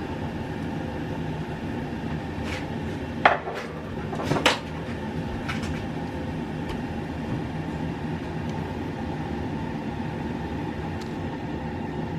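A few light clinks and knocks of utensils against dishes, two of them louder about three and four and a half seconds in, over a steady background hum.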